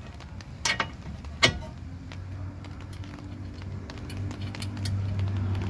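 Two sharp metallic clicks as a bolt and fittings are handled and fitted at a car's front suspension knuckle. A low steady hum then grows louder over the last couple of seconds.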